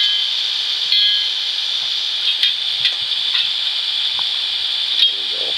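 DCC sound decoder in an N-scale Northern Pacific W3 Mikado model steam locomotive, playing a steady steam hiss through its small speaker as the engine creeps along. A short pitched puff comes about a second in, and a few sharp clicks follow in the second half.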